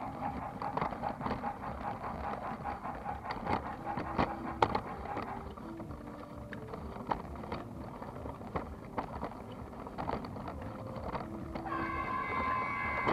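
Toy train rolling along a wooden track, a steady rattle with irregular clicks from its wheels and cars. A steady high tone sets in near the end.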